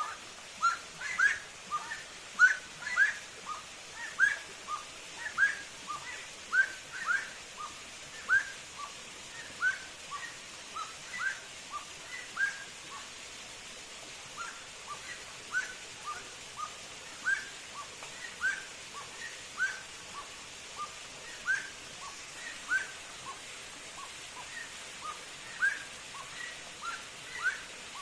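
A bird calling over and over: short, rising whistled notes, often in quick pairs, about once a second.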